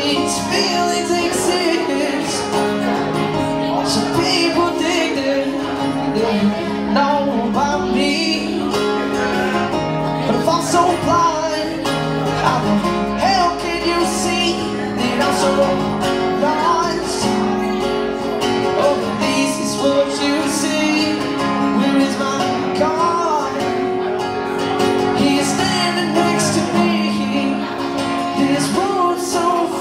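Live acoustic folk song: strummed acoustic guitars with a voice singing the melody over them.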